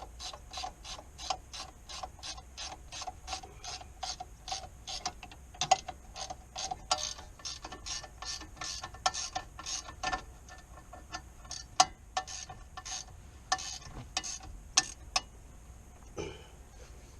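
Hand ratchet wrench clicking as a fastener on the car's brake or wheel assembly is worked. The clicks come evenly at about three a second for the first six seconds, then turn slower and irregular.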